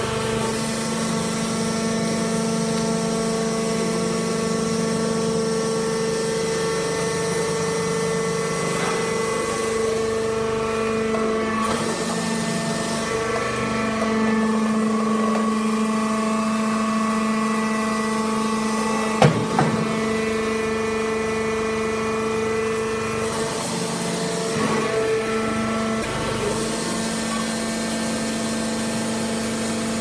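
Hydraulic sawdust baling press running, its motor and hydraulic pump giving a steady hum whose pitch pattern shifts a few times as the press works through its cycle. One sharp knock about two-thirds of the way through.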